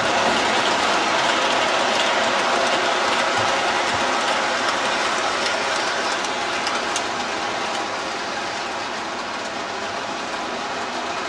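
O-gauge model train hopper cars rolling along three-rail track, a steady rolling noise of wheels on track. It grows a little quieter near the end as the caboose passes.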